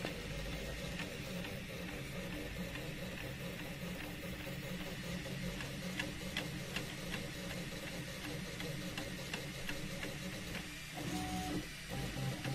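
3D printer running, its stepper motors giving a steady pitched hum with scattered light ticks. About eleven seconds in, the tones drop out briefly and come back at a different pitch as the motion changes.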